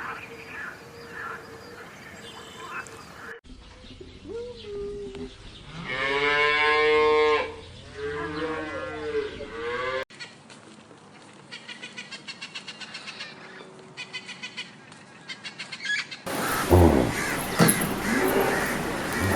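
A cow mooing: a long, loud call that bends in pitch, about four seconds in. It is followed by a run of quick, even chirping clicks, and near the end by a louder stretch of other animal calls.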